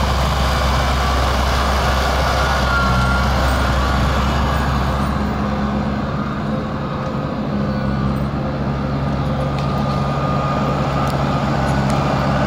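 Holder C9700H articulated compact tractor's diesel engine running steadily under load while its front snowblower throws snow. The sound turns duller about halfway through as the machine moves away.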